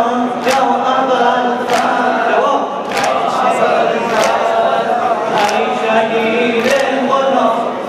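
Men chanting a Shia Muharram lament (noha) in unison, led by a young voice on a microphone, with a sharp slap about every 1.2 seconds from mourners beating their chests (sinazani) in time with the chant.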